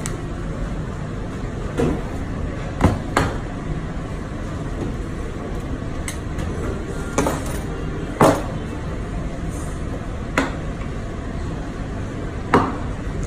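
Butcher's knife and beef cuts knocking on a butcher's counter: about seven sharp knocks at irregular intervals, over steady background noise.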